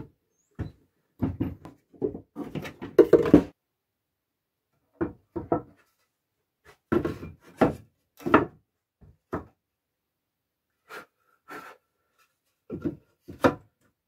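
Wooden boards of a beehive super being handled and fitted together by hand: irregular short wooden knocks, clunks and scrapes in several bursts, with silent gaps between them.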